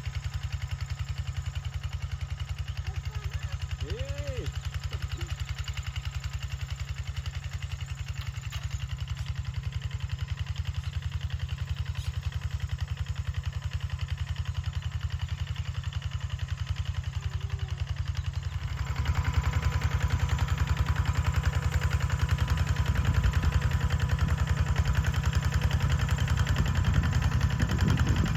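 A small engine running steadily, growing louder about two-thirds of the way through.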